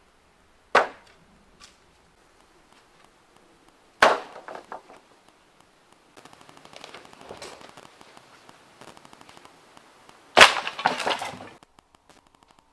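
Three sharp wooden cracks, the last the loudest, the second and third each followed by a short clatter, with scraping noise between the second and third.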